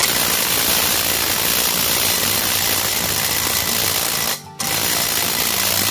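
Cordless impact wrench (Dekton, rated 380 Nm) hammering continuously in reverse on a large nut, with a brief pause about four seconds in before it hammers again. The nut does not break loose: it was tightened beyond the wrench's 380 Nm.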